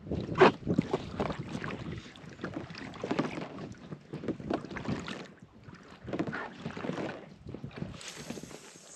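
Double-bladed kayak paddle strokes: the blades dip and pull through the lake water with a swishing splash every second or two, and water drips off the raised blade. Wind buffets the microphone.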